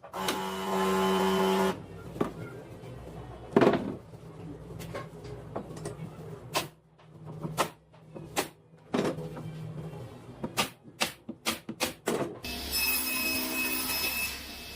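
Woodworking in a workshop: a power tool runs briefly, then a string of sharp knocks and taps on wood, then a power tool starts up again and runs steadily near the end.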